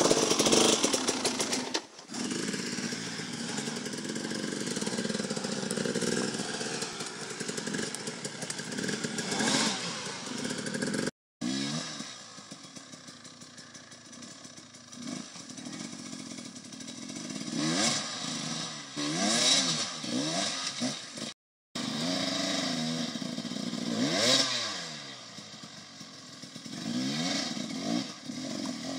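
Enduro dirt bike engine revving up and down over and over, its pitch rising and falling with each blip of the throttle, as the bike picks its way over rocks. The sound breaks off abruptly twice between clips.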